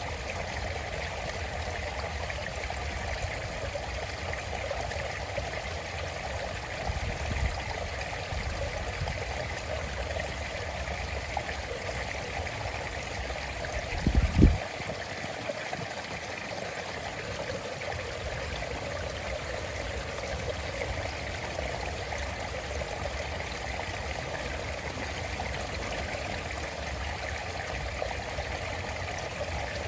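A stream running steadily, an even rush and trickle of water. About halfway through, a brief low thump stands out as the loudest sound.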